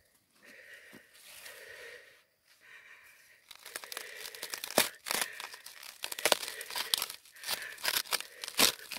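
Loose rock fragments and gravel crunching, scraping and clicking as a hand digs through crystal-bearing debris at a quartz vein. A quiet start gives way, about three and a half seconds in, to a busy run of sharp clicks and crunches.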